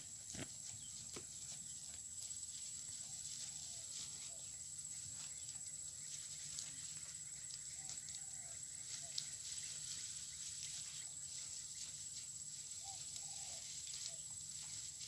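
Goats grazing close by: scattered small clicks and rustles of grass being torn and chewed and of hooves stepping, over a steady high-pitched hum.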